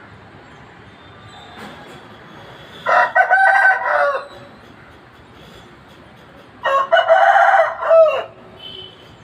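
Rooster crowing twice, each crow a loud pitched call of about a second and a half, the second dropping in pitch at its end.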